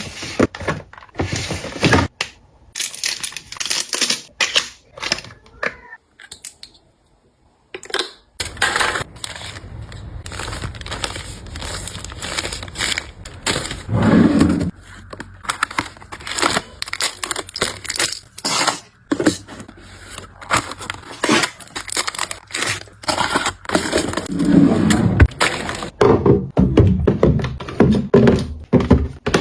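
Handling of toiletries and their packaging: crinkling and tearing of wrapping, with many short knocks and clicks as containers are picked up and set down. Near silence for a few seconds about two seconds in.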